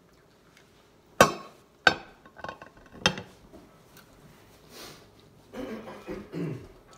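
Close-up eating sounds: sharp clicks, the loudest about a second in and two more within the next two seconds, then softer mouth noises as a slice of dragon fruit is bitten and chewed. A short hummed voice sound near the end.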